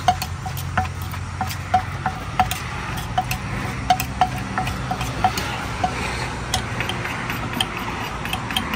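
Wooden pestle knocking against a clay mortar as green papaya salad (som tam) is pounded lightly and turned with a spoon: sharp knocks with a short ring, about one or two a second, over a steady low hum.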